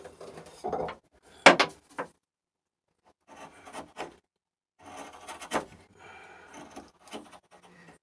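Hand chisel paring and scraping wood inside a small notch cut in a birch rail, a run of short scraping strokes. A sharper wooden knock comes about a second and a half in.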